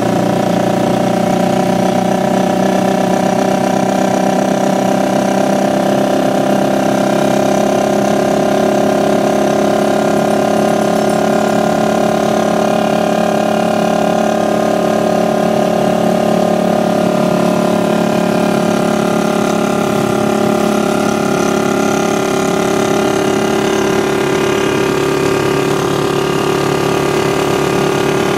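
Motorcycle engine of a tricycle (motorcycle with sidecar) running steadily at an even speed, heard from inside the sidecar.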